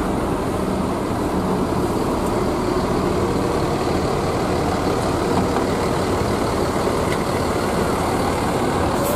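Mercedes-Benz intercity coach's diesel engine running steadily at low revs as the bus pulls slowly past.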